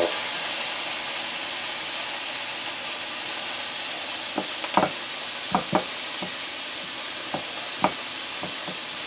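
Rabbit pieces sizzling in hot olive oil in a frying pan, a steady frying hiss. From about four seconds in come several short light clicks of metal tongs handling the meat.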